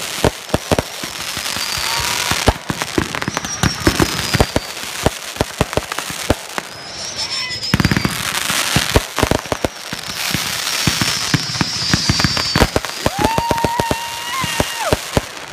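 Fireworks finale barrage: rapid, overlapping shell bursts and dense crackling, with several thin whistling tones that fall in pitch.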